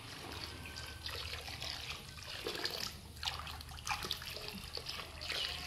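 A steady stream of water poured from a large metal kettle splashing into a plastic basin already holding water.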